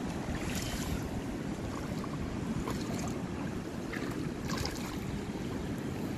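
Wind rumbling on the phone's microphone, with a few faint splashes of shallow water now and then.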